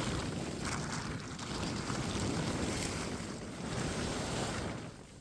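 Wind buffeting the microphone: a steady rushing noise that eases off near the end.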